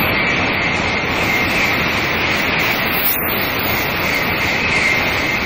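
A Nozomi Shinkansen bullet train roaring past close by at about 270 km/h: a loud, steady rush of noise as the long train goes by.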